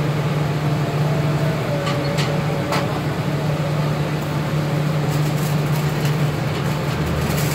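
A steady low mechanical hum, with a few short clicks about two to three seconds in.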